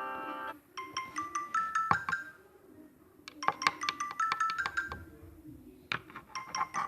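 Samsung phone ringtone: a short phrase of bright chiming notes stepping upward, repeated about every two and a half to three seconds. In the first half second the held chords of the previous ringtone end.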